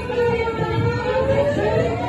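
A siren wailing in a slow glide: its pitch sinks low and then begins to rise again near the end, over the steady hubbub of a marching crowd.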